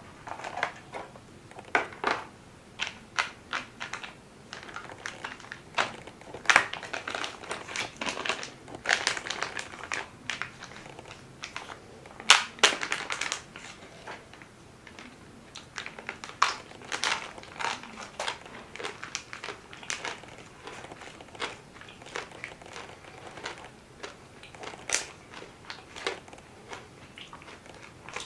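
Food being handled by hand: irregular crunching and crinkling, with sharp crackles scattered throughout and a few louder ones.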